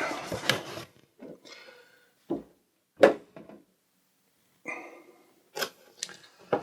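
Cardboard product box being handled and opened by hand: a few sharp knocks and scrapes, the loudest about three seconds in, with brief rustles between them.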